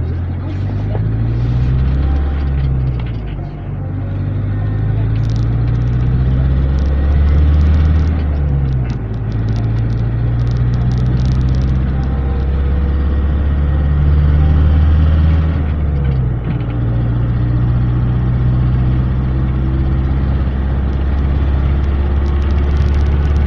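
Minibus engine running under way, heard from inside the passenger cabin, with road noise. Its pitch drops a few times with gear changes.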